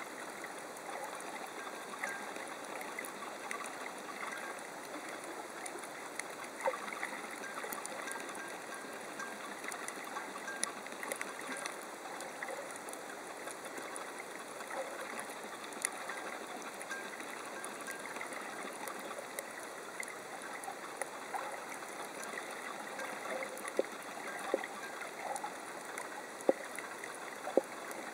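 Underwater ambient noise picked up by a camera in its housing on a coral reef: a steady hiss with many faint scattered clicks and crackles, and a few sharper clicks near the end.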